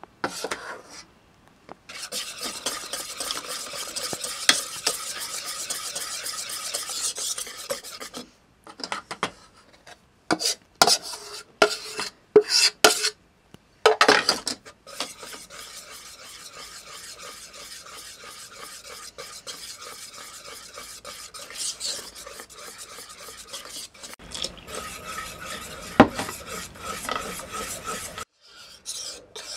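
Wire whisk stirring crêpe batter in a saucepan, working in freshly added flour, its tines scraping and clicking against the pan. A run of sharper clicks comes about halfway through and a single loud one near the end.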